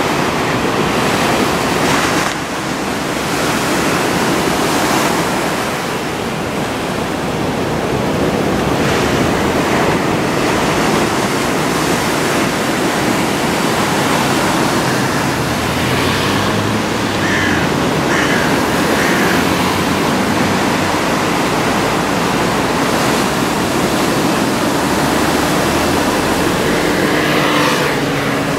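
Heavy surf from a typhoon swell: large waves breaking in a steady, continuous rush of noise.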